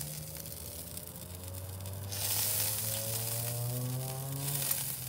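Fat sizzling as it drips onto the hot charcoal setup of a Weber kettle grill: a steady hiss that drops away briefly about two seconds in. Underneath it run a low hum and a faint tone that slowly rises in pitch.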